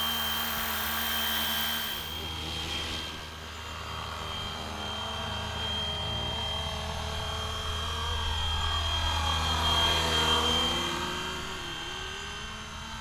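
Fly Wing Bell UH-1 Huey RC scale helicopter in flight: a steady high-pitched motor and rotor whine. Wind rushes on the microphone for the first two seconds, and about nine to eleven seconds in the helicopter grows louder while its pitch dips and comes back up.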